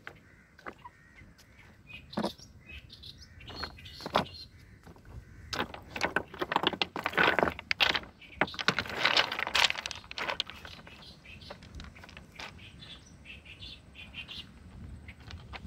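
Small birds chirping, with a dense run of sharp clicks and clatter from about six to ten seconds in, the loudest part.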